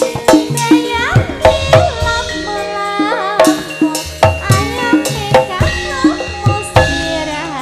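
Javanese tayub music: a woman singing a wavering, gliding melody into a microphone over regular kendang hand-drum strokes and ringing pitched percussion.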